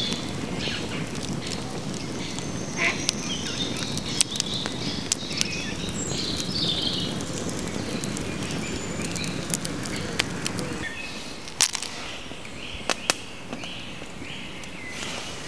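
Wood fire crackling with scattered sharp pops over the low steady rush of the flames, while birds call in the background. The low rush drops away about eleven seconds in, leaving the pops and the bird calls.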